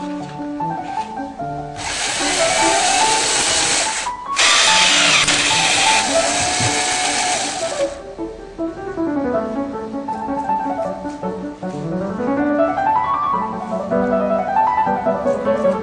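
Background music with a melodic instrumental line. Over it, about two seconds in, a loud steady rushing noise starts, drops out for a moment, then runs on until about eight seconds in.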